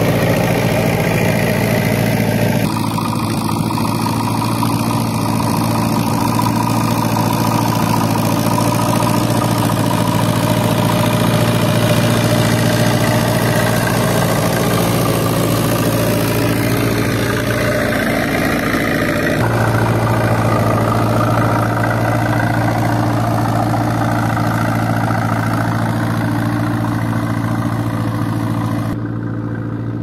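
A road roller's engine running steadily as the steel-drum roller compacts loose gravel chippings, a constant low hum. The sound shifts abruptly about three seconds in, again past the middle, and just before the end.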